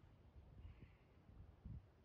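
Near silence, with a faint, uneven low rumble of wind on the microphone.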